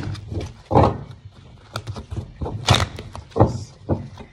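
Tarot cards being handled and shuffled in the hands, giving several irregular sharp slaps and taps.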